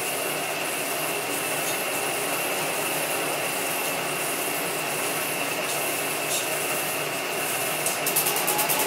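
Meopta Optilux 85103 film projector's motor running steadily in rewind, spinning the reels with a whir and a steady high whine. About eight seconds in, a fast, regular flapping clatter starts as the tail of the film runs off the lower reel.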